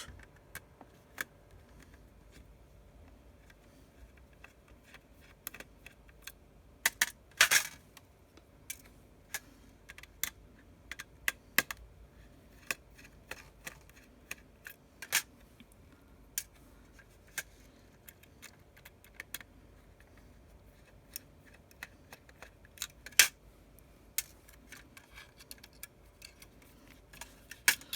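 Light, scattered clicks and taps of a precision screwdriver and small tools on an iPhone 6s's metal parts as tiny screws are backed out of the main board. A brief louder clatter comes about seven seconds in, and a single sharp click near twenty-three seconds.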